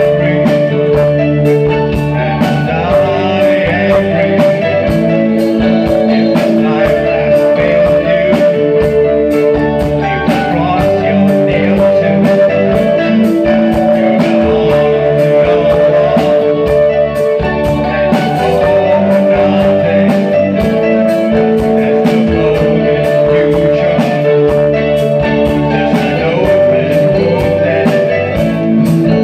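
Live new wave rock band playing over a steady drum beat, with electric guitar, electric bass and sustained keyboard notes.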